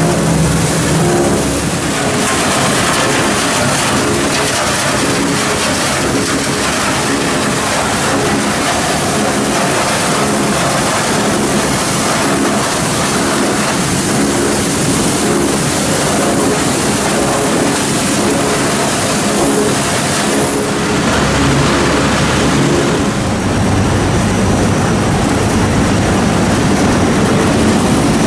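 Loud, steady machinery noise of a plastic film recycling line: a dense rush of air and mechanical drone with a low hum running through it. The sound changes abruptly about three-quarters of the way in, when a deeper rumble comes in, and again shortly after, when a thin high whine appears.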